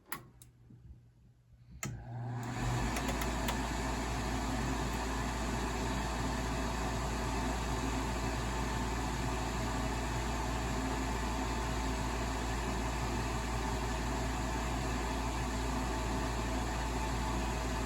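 Old Amana gas furnace starting up: a click about two seconds in, then the newly replaced draft inducer fan motor starts and runs steadily with a low hum.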